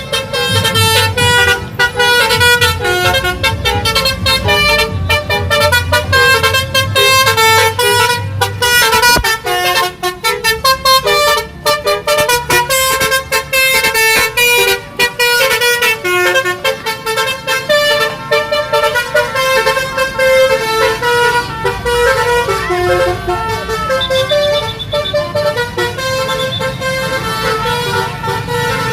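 Bus 'telolet' horns: a set of multi-tone air horns playing quick melodic tunes, one sustained note stepping to the next, loud throughout. A low engine rumble runs beneath them for the first third.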